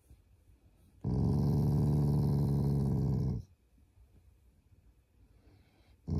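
Black Shiba Inu growling as his head is stroked: one steady, low growl lasting about two seconds starting a second in, then another growl beginning right at the end. It is an affectionate growl, not an angry one; he growls to ask to keep being petted.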